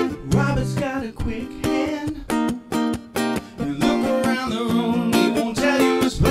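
Acoustic guitar strummed in a steady rhythm while a man sings along into the microphone.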